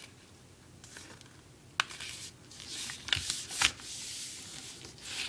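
Sheet of printer paper being folded and creased by hand: rustling and sliding strokes, with a sharp snap a little under two seconds in and louder swishes about three seconds in.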